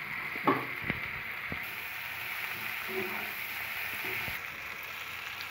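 Sliced onion, tomato and ground spices frying in oil in a pan with a steady sizzle. A wooden spatula knocks against the pan a few times in the first two seconds.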